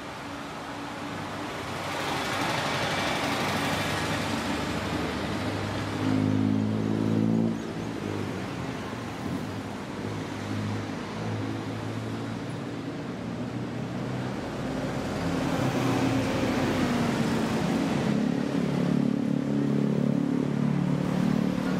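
City road traffic passing close by, with a low engine hum that is loudest about six seconds in and returns through the last third.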